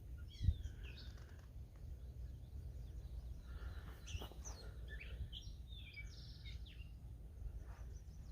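Small birds chirping and twittering in quick, short notes, in two bunches: near the start and again through the middle of the stretch. Underneath runs a steady low wind rumble on the microphone, with one brief low bump about half a second in.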